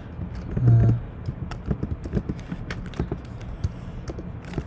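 Typing on a computer keyboard: a quick, irregular run of key clicks. A short hummed voice sound comes about a second in.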